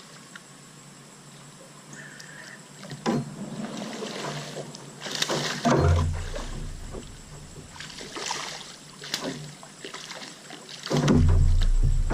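Water splashing and sloshing as a hooked smallmouth bass is fought and brought alongside a kayak, with scattered clicks and knocks from handling the rod and boat. Near the end come heavy low bumps and rumbling as the fish is lifted in.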